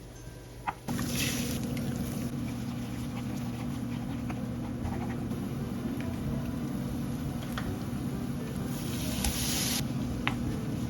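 Stovetop pan cooking: a steady low hum starts about a second in, with scattered light clicks of utensils and two short hissing sizzles, one near the start and one near the end.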